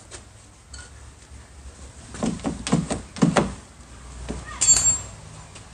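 Knocks and clunks of metal parts as a car door's outside handle and lock are fitted inside the door, with a quick run of them in the middle and a sharp metallic clink with a short ring about a second before the end.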